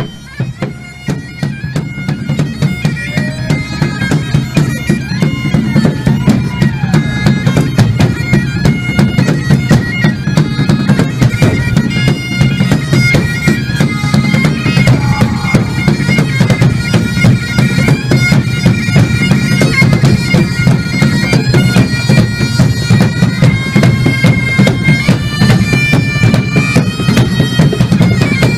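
Background music: a droning, bagpipe-like melody over a fast, driving drum beat, swelling up over the first few seconds.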